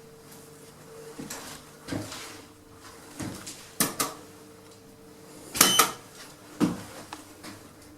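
Irregular footsteps and a few short knocks and clatters, the loudest a ringing metallic clatter about five and a half seconds in. Under them a steady building hum keeps going.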